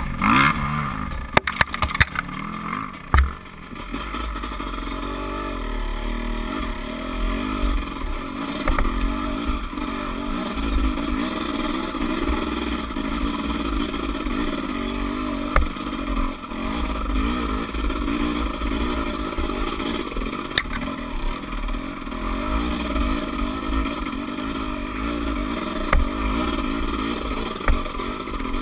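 Dirt bike engine running as the bike is ridden over rough trail, its revs rising and falling. Scattered clattering knocks from the bike jolting over the ground, most of them in the first few seconds.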